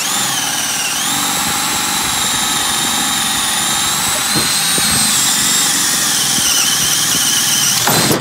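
Makita XPH10 brushed 18 V cordless hammer drill in drill mode on speed 2, boring through a wooden board with a 1-inch self-feeding auger bit under hand pressure. It gives a steady whine that rises slightly in pitch about a second in, then cuts off abruptly near the end once the bit is through.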